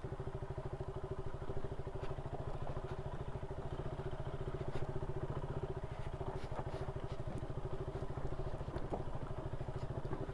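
KTM Duke 200's single-cylinder four-stroke engine running steadily at low revs with an even pulsing beat, the bike rolling slowly over loose rock. A few faint clicks sound around the middle.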